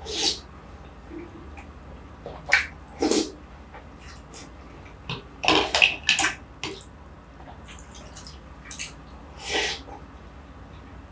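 Close-up wet slurping and eating mouth sounds from a person eating shwe yin aye, a Burmese coconut-milk dessert with soaked bread and jelly strands: short, loud slurps and chews come in separate bursts, with a cluster of them in the middle.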